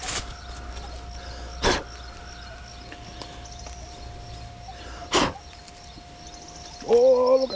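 A hand digger striking the ground three times, sharp knocks spaced well apart, over a steady faint tone. Near the end comes a short pitched tone, about half a second long.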